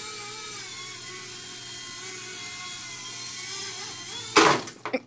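Blade mSR X micro RC helicopter's electric motor and rotors whining steadily in flight, the pitch wavering a little. About four seconds in it lands hard in a cardboard box with a loud clatter, and the motor sound stops.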